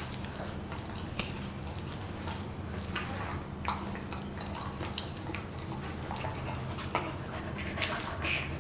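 Pomsky puppy licking and chewing at a stuffed rubber Kong toy: irregular wet smacks and clicks, with a steady low hum underneath.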